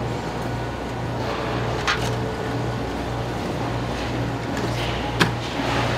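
Steady low mechanical hum with a droning note that pulses on and off about twice a second. Over it a knife knocks sharply on the plastic cutting board while it slices salmon, once about two seconds in and louder about five seconds in.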